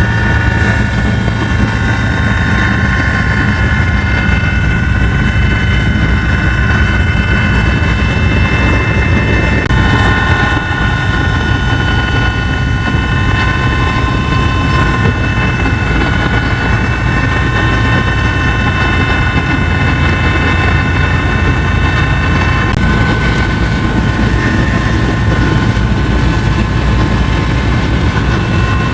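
Helicopter engine and rotor running steadily: a loud, constant drone with a few steady high-pitched whining tones over it.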